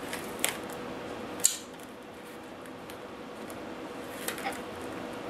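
Thin wires and black plastic spiral wrap being handled and twisted together. There are two sharp clicks in the first second and a half and a short run of clicks near the end, over a faint steady hum.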